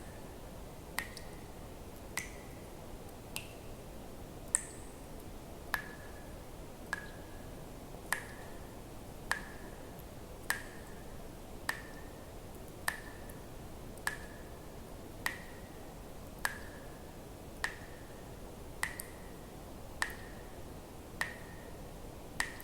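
Water drops dripping one at a time, each a short plink with a brief ringing tone, at a steady pace of about one every second and a bit, over a faint steady hiss.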